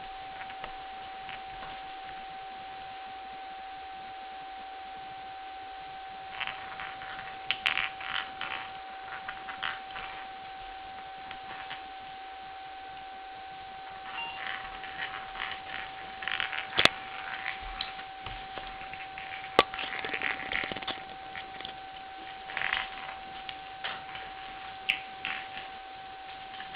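A steady high-pitched whine, with clusters of sharp ticks, clicks and scratchy rustles coming and going over it, the loudest being single sharp clicks about 17 and 20 seconds in.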